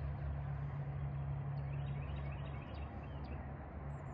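Steady low hum with a few faint bird chirps.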